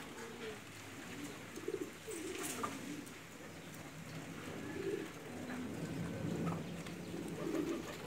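Several domestic pigeons cooing, with low, overlapping coos that go on without a break.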